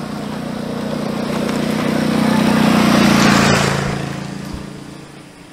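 Motor scooter engine passing by: it grows louder to a peak about three seconds in, then fades away.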